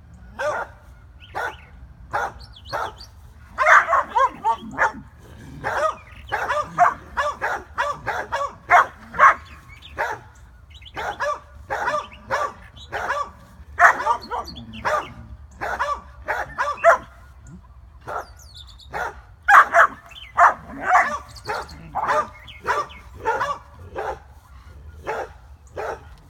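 A dog barking over and over in quick runs of short barks, about two or three a second, with brief pauses between the runs.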